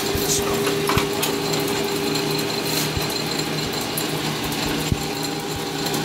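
South Bend metal lathe running under power with the half nut engaged on the lead screw: a steady mechanical whir of several tones from its gearing, with a light click about every two seconds.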